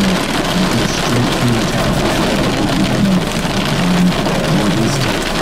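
Heavy rain from a tornadic supercell pouring down, a loud steady hiss with no break.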